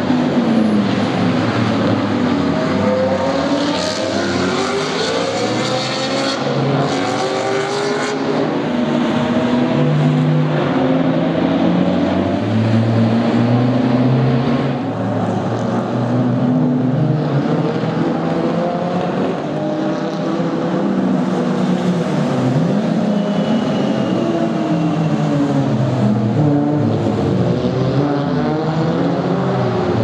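Several race cars running through a slow corner one after another, their engines overlapping. Pitch falls as they brake and shift down, then climbs as they accelerate away through the gears.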